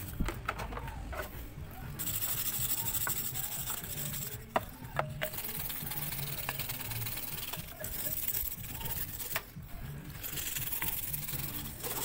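A cloth rubbing and wiping over the engine's valve cover and the parts around it, in long rustling strokes with short pauses, and a few sharp knocks of hand or rag against the engine parts.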